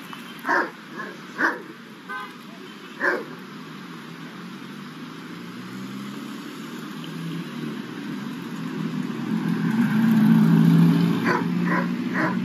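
A few short, sharp dog barks in the first three seconds and three more near the end. In between, a car passes on the road, its engine hum swelling to its loudest about ten seconds in.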